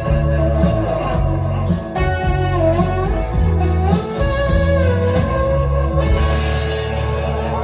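Live indie rock band playing the instrumental close of a song, with electric guitars over bass and drums. Near the end the playing settles into a held, ringing chord.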